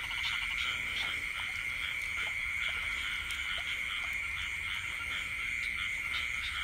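Dense night chorus of frogs calling: a steady high-pitched drone with many short rising calls scattered through it.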